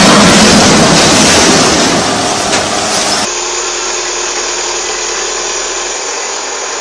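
A loud, steady rushing noise that cuts off abruptly about three seconds in. It gives way to the quieter, steady running of an excavator's engine as the machine hoists itself onto a truck.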